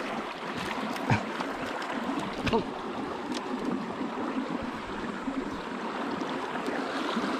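Steady rush of flowing stream water, with a couple of short knocks about one and two and a half seconds in.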